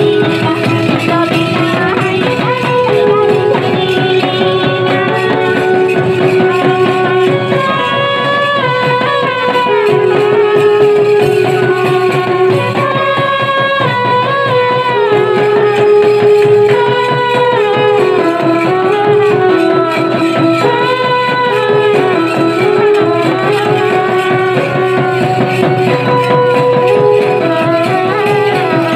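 Santali tasa party band playing a folk dance tune: trumpets carry the melody in held notes that step up and down, over a fast, dense beat of barrel drums and side drums.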